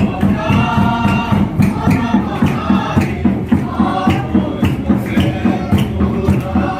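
A congregation singing a hymn together over a steady drum beat.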